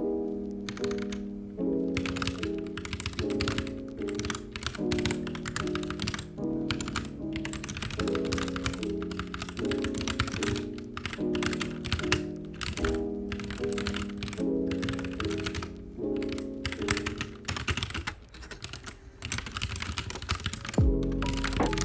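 Typing on a computer keyboard: quick, irregular key clicks in runs with short pauses, over soft lofi piano chords that repeat in a loop.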